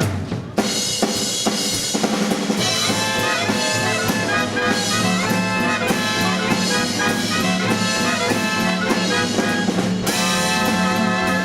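Live dance band playing upbeat jazz with trumpets and trombones over a drum kit. A drum break gives way to the full band about half a second in.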